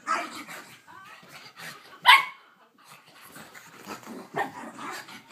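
Pug puppy barking at her own reflection in a mirror: a few sharp barks, the loudest about two seconds in, with quieter barks and noises between.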